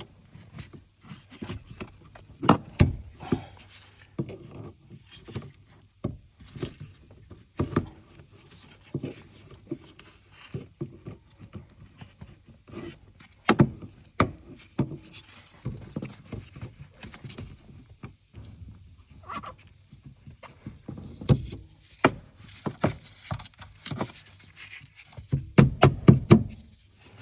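Irregular clicks and knocks of a hand tool tightening hose clamps on a fuel pump's hoses, with a quick run of louder taps near the end.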